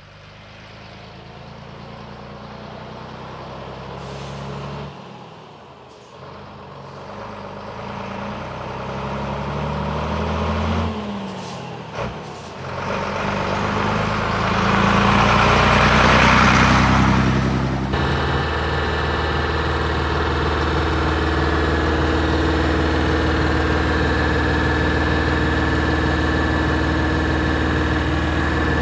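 Scania 92H tractor unit's straight-six diesel engine pulling up through the gears as the truck approaches, the engine note climbing and dropping back twice, with a brief click about twelve seconds in. It passes close at its loudest, then after a sudden change the engine idles steadily up close.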